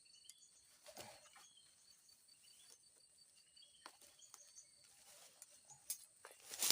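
Faint countryside ambience: a steady high-pitched insect drone with faint short chirps from small birds and a few light clicks, and a louder brief noise near the end.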